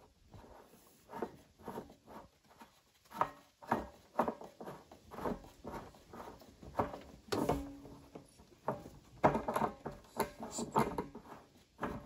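Irregular clicks, knocks and scrapes of plastic on plastic as a 3/4-inch bulkhead fitting is screwed into a hole in a blue plastic water barrel while a rod holds the inner part from spinning.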